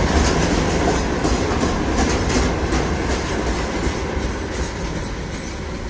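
Train wheels clattering over rail joints, with a loud running rumble and a quick run of knocks about two seconds in; the noise slowly fades toward the end.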